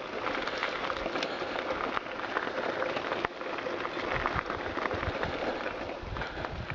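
Mountain bike tyres rolling over a loose gravel track: a steady crunching and crackling of stones, with small knocks as the bike jolts over the surface.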